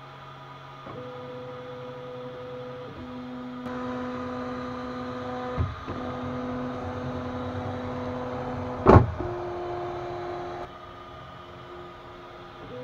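CoreXY 3D printer running, its stepper motors whining in steady tones that jump in pitch whenever the print head changes speed, over a steady fan hum. A short knock comes about five and a half seconds in and a louder, sharp knock about nine seconds in.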